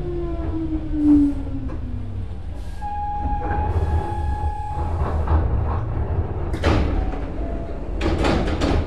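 Nose Electric Railway 5100 series electric train heard from on board, coming to a stop: the motor whine falls in pitch as it brakes, a steady high squeal sounds for a couple of seconds midway, and near the end the doors open with sharp air hissing and clatter.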